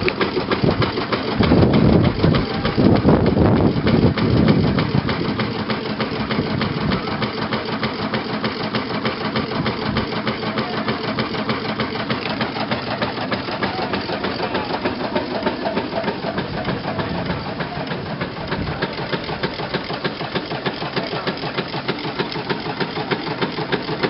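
1906 Russel steam engine running, with a fast, even mechanical beat that is louder for a few seconds near the start.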